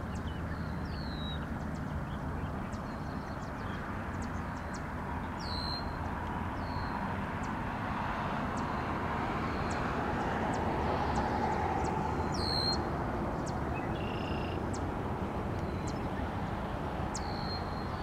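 Red-winged blackbird giving short, high, downslurred call notes a few seconds apart, two of them louder, over a steady low rumble.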